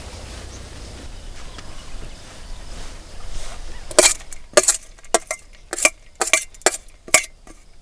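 Kitchen utensils clinking: a run of about eight sharp clinks, roughly two a second, starting about halfway in after a stretch of low background noise.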